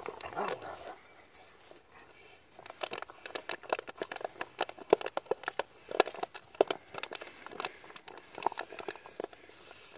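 Dogo Argentino dogs play-fighting: a brief low growl at the start, then a long run of quick, irregular crackling clicks and snaps as the dogs chew and paw at a plastic bottle.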